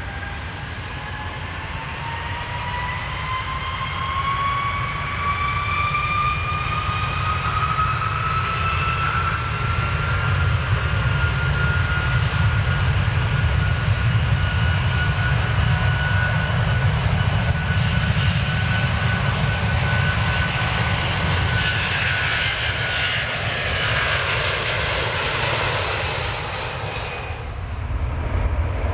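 Airplane engines spooling up for takeoff, over a steady low rumble. A whine climbs in pitch over the first ten seconds and then holds steady. A rush of engine noise builds from about twenty seconds in, then cuts off sharply shortly before the end.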